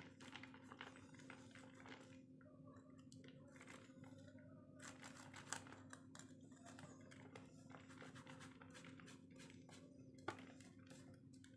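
Faint, repeated scraping of a block of bondon bait being grated on a small flat metal hand grater, over a low steady hum.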